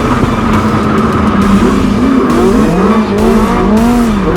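Off-road race vehicle's engine being revved up and down over and over, its pitch rising and falling in quick waves, over the rattle and rumble of the vehicle moving across rough ground.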